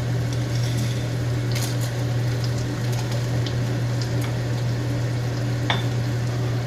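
Food frying in a pan, with a steady sizzle and a couple of sharp clicks from stirring, over a constant low hum.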